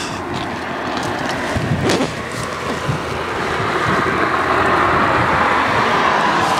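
Steady outdoor rushing noise that swells louder over the last few seconds, with a single knock about two seconds in.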